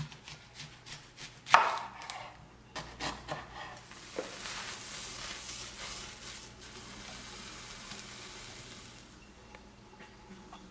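Kitchen knife cutting an onion on a wooden cutting board: a run of sharp knocks of the blade on the board, the loudest about a second and a half in. Then a steady soft hiss as onion and ginger slices dry-sear in a pan with no oil.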